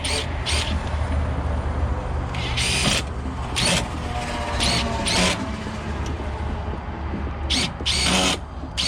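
Old exit-device hardware being worked off a metal door: short, sharp scraping and clinking noises, about eight of them at uneven intervals, over a steady low hum.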